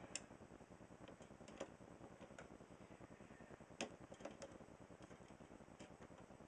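Faint, scattered small clicks of screws and fingers against the computer case while fan screws are being started by hand, about half a dozen in all, the sharpest near four seconds in.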